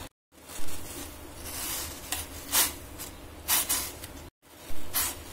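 Steel spoon stirring noodles in a steel pot of boiling water, scraping and clinking against the pot in several short strokes over a steady low hum.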